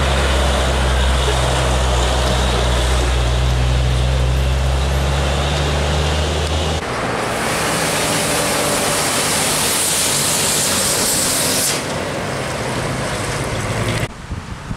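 Heavy diesel trucks going by close at hand: a steady low engine drone for the first half, then another truck passing with a long high hiss lasting about five seconds.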